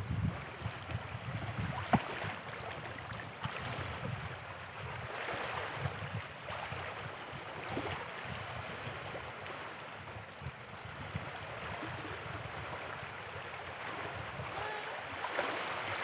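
Shallow lake water washing over the shore, with a few small splashes as a toddler sitting in it pats the water with his hands.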